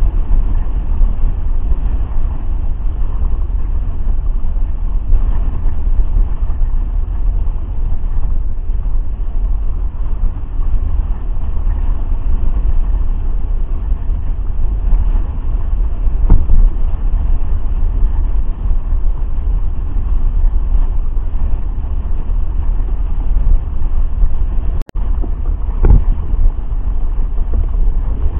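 Heavy, steady wind buffeting on the microphone of a camera riding on a hydrofoil board at speed, with the rush of water from the foil mast cutting the surface. Two brief knocks, one midway and one near the end.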